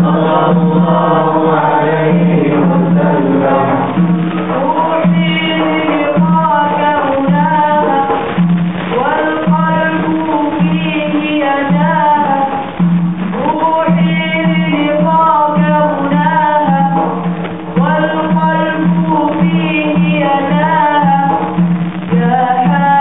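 A young man singing a slow, ornamented melody in a devotional style over recorded backing music with a steady low pulsing beat. The voice comes in strongly about five seconds in.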